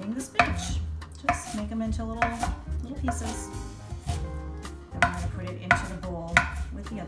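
Chef's knife chopping fresh spinach leaves on a wooden cutting board: sharp blade strikes against the board, roughly one a second at an uneven pace, over background music.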